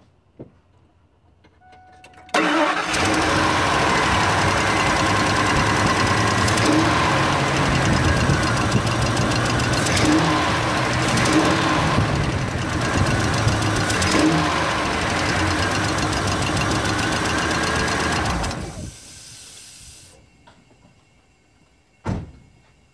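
Ford Triton V10 engine starting about two seconds in and running steadily on nine cylinders. One blown-out spark plug hole is capped off and its fuel injector disconnected, so it runs quietly. It cuts off near the end, followed by one short click.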